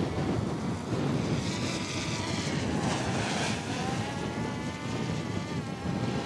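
Quadcopter drone's propellers whining, the pitch wavering up and down as it manoeuvres, over wind buffeting the microphone.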